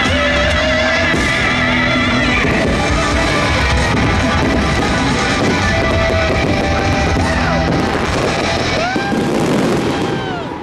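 Loud rock-style holiday show soundtrack with singing and guitar, mixed with fireworks bursts. Near the end the music drops away and cheering and whistling take over.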